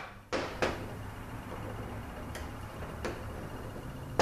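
A few separate light clicks and taps of a screwdriver and small metal valve-body parts being handled on a steel workbench, with a sharper click near the end, over a steady low hum.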